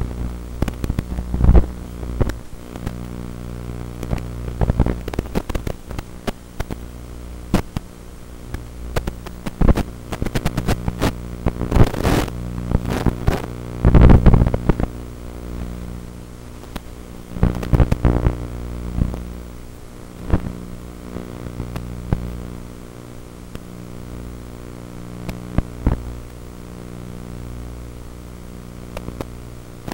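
Racing quadcopter with Emax RS2205 2500 kV motors in flight, heard through its onboard camera's microphone: a steady buzz of motors and propellers under many sharp crackles and pops, loudest about halfway through.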